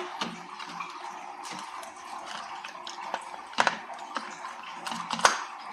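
A few short sharp plastic clicks and taps as a replacement lithium battery pack is handled and fitted into an ADT alarm panel's battery compartment, the two loudest a little past halfway and near the end, over a steady background hiss.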